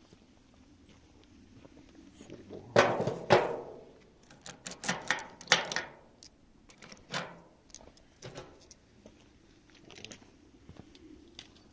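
A series of sharp clicks and knocks in a small room. The two loudest come close together about three seconds in, and smaller clusters follow over the next five seconds.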